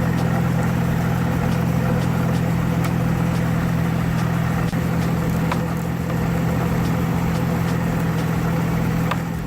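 2003 GMC Envoy engine idling steadily with a constant hum, with a noise from the cooling fan assembly that the owner suspects is the water pump.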